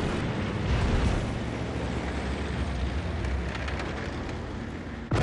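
Steady, noisy rumble of military vehicle engines on the move, easing slightly before it cuts off abruptly near the end.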